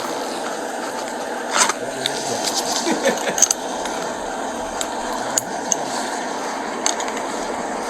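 Light metallic clinks and jingles, a handful of short sharp ones scattered through, over a steady background hiss.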